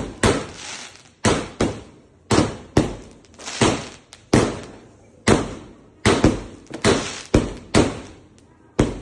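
A 1.2-inch, 42-shot fireworks cake firing shot after shot: sharp bangs at uneven spacing, about two a second, each fading quickly.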